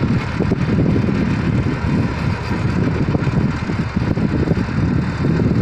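John Deere 5405 tractor's three-cylinder diesel engine running steadily under load while driving a rear-mounted rotavator through the soil.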